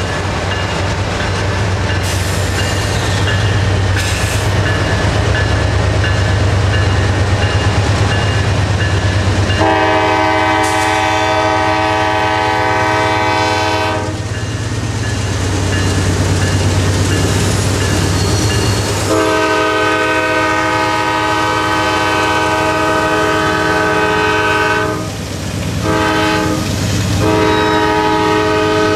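Diesel freight locomotives, NS GE C40-9Ws, working hard as they pull off, with a steady low engine rumble. The lead unit's air horn sounds a long blast about ten seconds in. From about nineteen seconds it sounds again: a long blast, a short one and another long one, the pattern of a grade-crossing signal.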